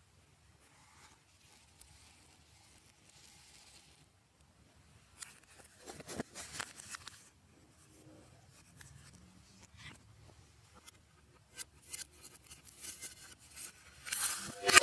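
Slime being worked by hand, giving sticky crackling and clicking sounds in irregular bursts, first a few seconds in and then more densely and loudly near the end.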